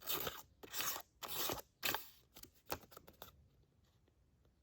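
Dull D2 steel pocketknife blade dragged through a sticky note in four short strokes, tearing the paper rather than slicing it cleanly, followed by a few light clicks.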